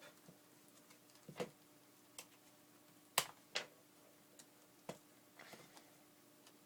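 Scattered quiet clicks and taps, about half a dozen, of a prying tool working at the edge of a white MacBook's plastic top case to unclip it, the sharpest a little over three seconds in.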